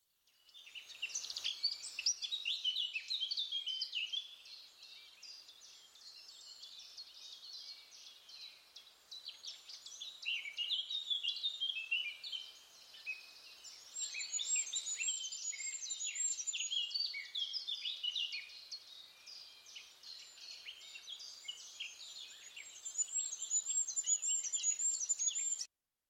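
Field recording of many songbirds singing at once in a forest: overlapping high chirps, trills and whistles, louder in some stretches and softer in others, stopping abruptly near the end.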